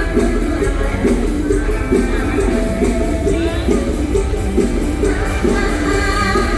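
Live band music with a steady beat, strong bass and a regular ticking cymbal. A melody line rises over it about halfway through and comes back from about five seconds in.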